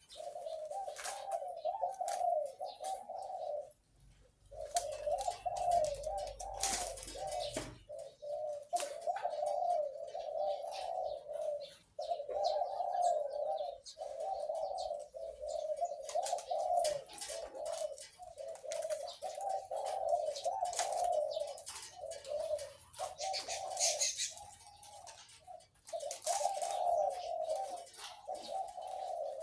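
Captive zebra dove cooing: runs of quick, warbling coo notes repeated almost without pause, with short breaks between phrases. Scattered sharp clicks run through it, and there is a low rumble for a few seconds near the start.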